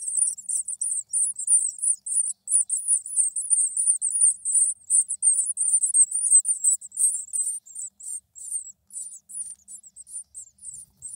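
Small songbirds twittering: a dense, continuous stream of very high, rapid chirps that grows sparser over the last few seconds.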